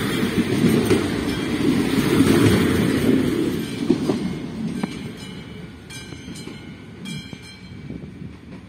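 ČD RegioShark diesel multiple unit passing over the crossing. The rumble of its wheels and engine is loud for the first three seconds or so, then fades steadily as it moves away.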